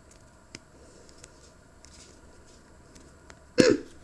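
Faint small clicks and handling noises of a plastic toy capsule being opened by hand, followed about three and a half seconds in by a short, loud vocal exclamation.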